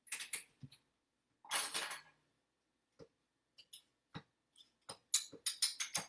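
Brown sugar being scooped into a one-third-cup measuring cup: a short scraping rustle, then a run of light clicks and taps that grows busier near the end.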